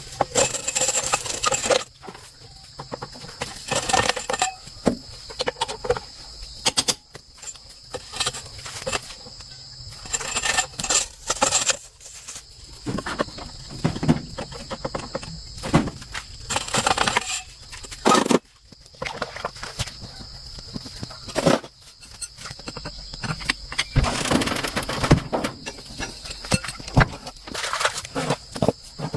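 Irregular knocks, clicks and rustling of hand work with tools and parts, over a faint steady high tone.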